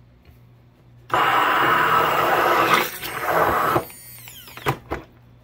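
Immersion stick blender running in a glass jar of mayonnaise ingredients (egg, mustard and oil) for about three seconds, then switched off and winding down with a falling whine. Its blending head is not twisted on all the way. A sharp click follows near the end.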